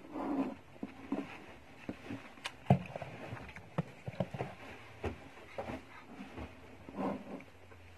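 Scattered light clicks and knocks of plastic squeeze bottles and tableware being handled on a table, the sharpest knock about two and a half seconds in.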